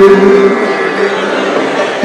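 Singing of a Thiruvathirakali dance song: a held note fades out about half a second in. A brief, quieter lull with a faint steady tone follows until the next line begins.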